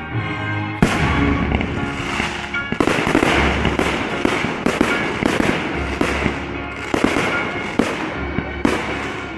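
Aerial firework shells bursting in a string of sharp bangs, roughly one a second, over classical music played for the show.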